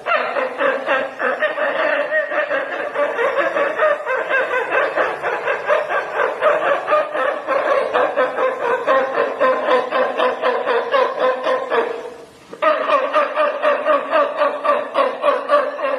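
A man's voice imitating a pack of dogs barking: a fast, steady string of short barks, broken once by a brief pause about twelve seconds in.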